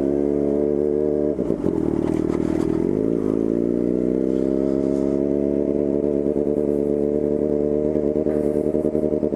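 Yamaha FZ6's 600 cc inline-four running loud through a straight-through 4-into-1 exhaust with no silencer, under way. The engine note drops briefly twice, about a second and a half in and around three seconds, rising again after each. It then holds a steady pull, slowly climbing in pitch.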